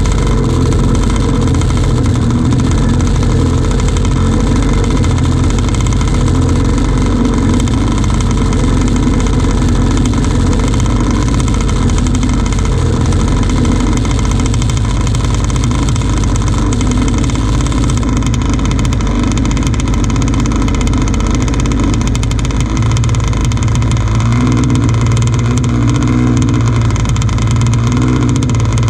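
Zenoah two-stroke gas engine of an RC hydroplane idling steadily, heard from right beside the engine, with no revving.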